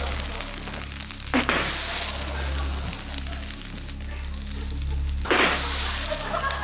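Fire in a metal garbage can full of clothing, crackling steadily and twice flaring up with a loud whoosh, about four seconds apart.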